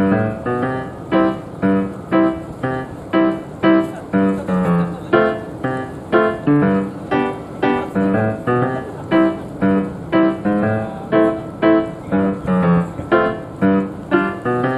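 Background piano music: a light melody of evenly spaced notes, about three a second.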